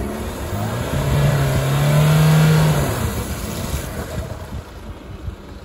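Jeep Compass Trailhawk's 2.0-litre diesel engine revving hard as the SUV struggles through deep mud and slush. The engine note climbs about a second in and drops away after about three seconds.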